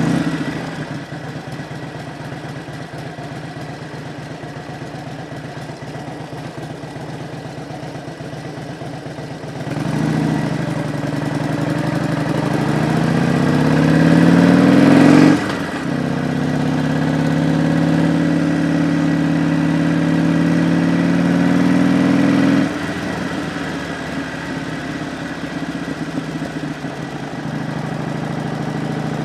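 Harley-Davidson Road Glide's V-twin engine pulling away under load: running low for the first ten seconds, then accelerating with rising pitch, a gear change about fifteen seconds in, holding steady under throttle, and the throttle rolled off about twenty-three seconds in as the bike slows.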